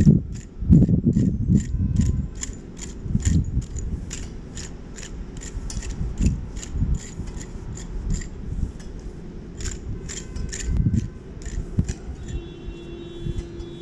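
Archaeologist's trowel scraping soil in quick, regular strokes, about three a second. Low rumbling gusts are loudest in the first couple of seconds, and a steady hum joins near the end.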